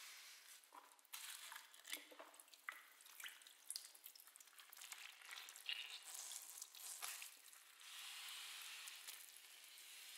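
Near silence: a faint hiss with scattered soft clicks and crackles.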